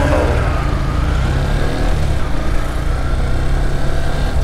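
Yamaha FZS V3's 149 cc single-cylinder engine running steadily while riding, mixed with wind and road noise.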